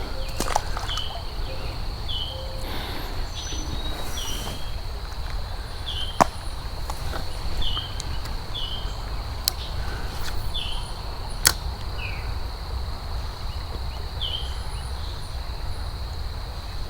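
Creekside ambience: a steady high insect drone and a short high chirp repeating about once a second, over a low steady rumble. Two sharp clicks stand out, about six and eleven seconds in.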